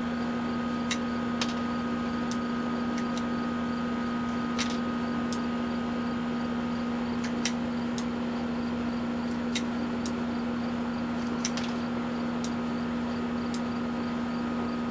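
A steady mechanical hum, with a few faint, sharp clicks scattered through it.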